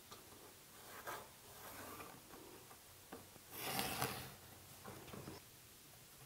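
Quiet hand-work sounds on a plywood blank: a pencil scratching as lines are marked, with a louder rubbing scrape about halfway through as a piece is slid across the wood.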